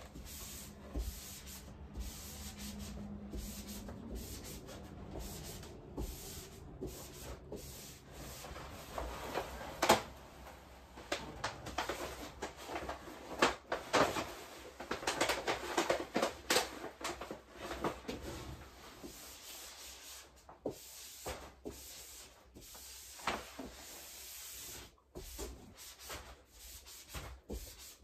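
Peel-and-stick wallpaper being handled and rubbed down onto a wall: irregular rustling, scraping and rubbing with scattered knocks, busiest in the middle and thinning out towards the end.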